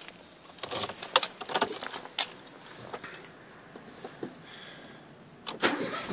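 Car keys jangling and clicking at the ignition of a Ford Focus 1.0, a few scattered rattles in the first couple of seconds. Near the end the car starts up, cold, with a rising rush of noise.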